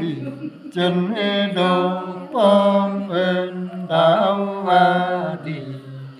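A man's voice singing unaccompanied in a slow, chant-like folk style: long held notes in short phrases, each sliding a little at its start before settling.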